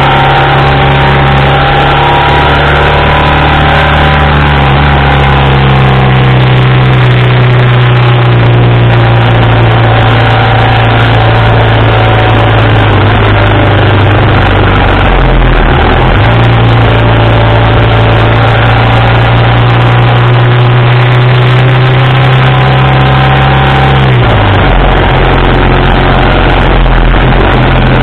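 1987 BMW R80RT's air-cooled flat-twin engine running at road speed, heard close up from the engine bar, over steady wind and road noise. Its note dips briefly about halfway through and drops in pitch a few seconds before the end.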